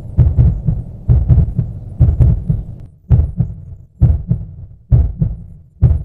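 Low, thudding heartbeat-like pulse, a quick cluster of two or three thumps repeating about once a second.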